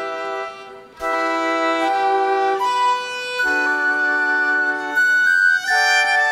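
Live violin playing a slow melody of long held notes over electronic keyboard accompaniment. The music drops away briefly just before a second in, then resumes.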